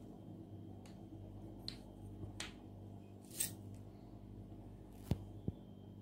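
Swirl lollipops on wooden sticks being handled and gathered in one hand: a few scattered light clicks and taps as candy and sticks knock together, the sharpest two close together near the end, over a faint low hum.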